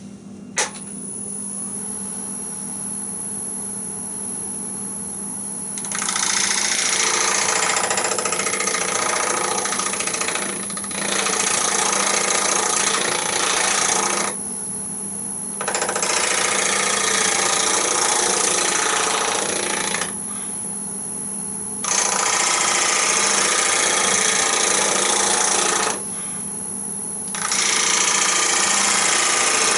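Wood lathe switched on just under a second in and running with a steady hum. A round-nose scraper then shear-scrapes the spinning natural-edge bowl in four long passes of loud, rough cutting noise, with only the lathe's hum between passes.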